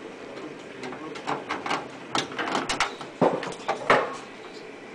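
Formed sheet-zinc flashing piece being handled, giving a run of metallic clatters and knocks. The two loudest come a little after three seconds and just before four seconds in.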